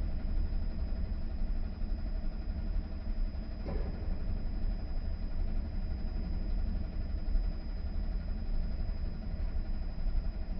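AEG tumble dryer running, its drum turning with a single bedsheet tumbling inside: a steady motor and fan hum over a low rumble. One brief knock a little under four seconds in.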